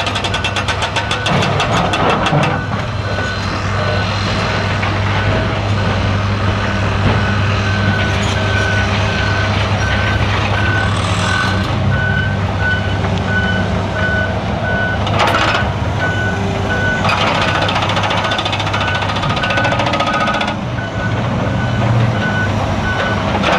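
Heavy diesel excavators running at a rock dig. A hydraulic breaker hammers rapidly for the first couple of seconds. Then a reversing alarm beeps over and over over the engine noise as a dump truck backs up.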